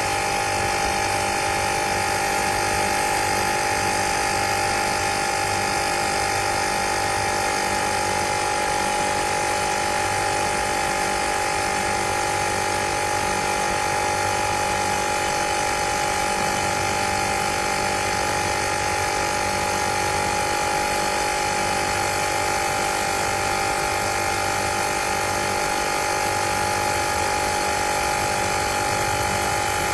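Small portable cordless tire inflator's piston compressor running steadily at a constant pitch.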